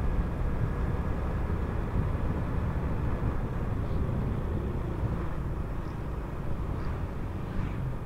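Honda Supra X 125 FI motorcycle's single-cylinder engine running steadily while riding, with wind rumbling on the handlebar-mounted microphone.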